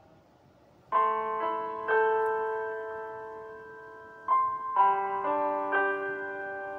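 Background piano music: slow, gentle chords that start about a second in, each struck and left to ring and fade before the next.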